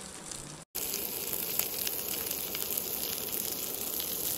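Crumbed fish frying in a pan, coated in egg and crushed salt-and-vinegar chips. It sizzles and crackles, cuts out briefly under a second in, then resumes louder.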